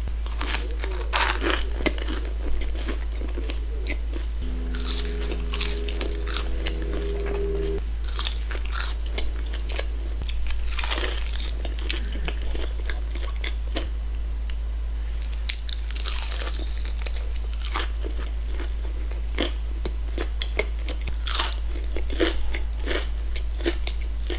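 Close-miked crunchy bites and chewing of breaded fried chicken fingers, sharp irregular crunches mixed with wet mouth sounds. A steady low hum sits underneath, and a short cluster of held tones sounds about five seconds in for roughly three seconds.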